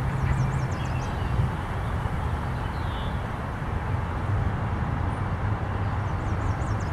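Outdoor ambience: wind rumbling on the microphone over a steady low hum, with a small bird giving quick, high, descending chirps near the start and again near the end.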